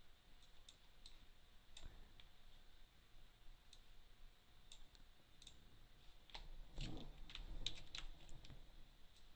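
Faint clicking of a computer mouse: scattered single clicks, then a quicker run of clicks with a few duller knocks about seven to eight seconds in.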